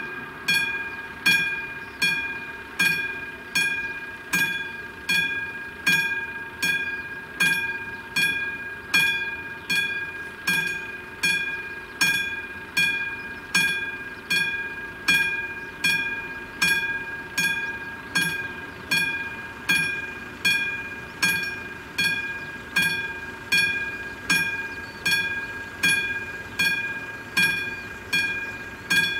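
Classic mechanical level-crossing warning bell ringing with evenly repeated hammer strikes, a little more than one a second, each stroke ringing on briefly. It signals that the crossing is active and a train is approaching.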